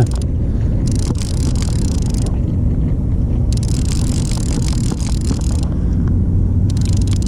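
Steady low rumble of wind buffeting the microphone, with a higher hiss that comes and goes in stretches of a second or two.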